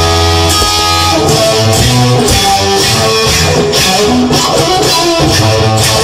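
Recorded guitar music: a song led by guitar over a sustained low bass line, with regular sharp percussive hits.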